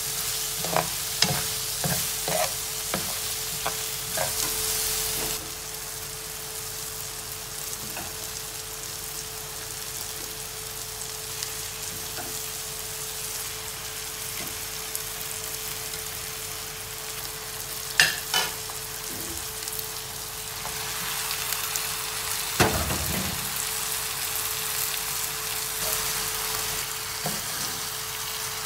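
Sliced mushrooms and onions sizzling in a frying pan, with a metal spoon scraping and clinking against the pan many times in the first few seconds. The frying then goes on more quietly, broken by a single sharp clink midway and a dull thud later as raw chicken pieces go into the pan. A steady hum runs underneath.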